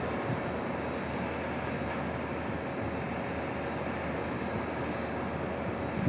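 A steady, even background drone with a faint steady whine running through it.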